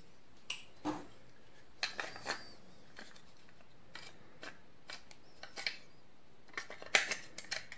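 Small, scattered plastic clicks and taps as an AA battery is handled and fitted into the battery compartment of a Logitech B170 wireless mouse, with a quick cluster of clicks near the end.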